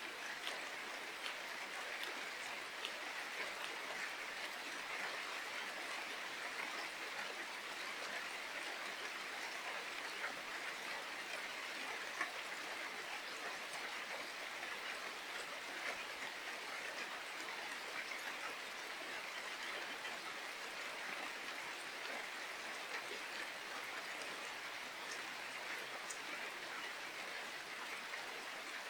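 Steady rain falling, an even hiss with many small drops ticking.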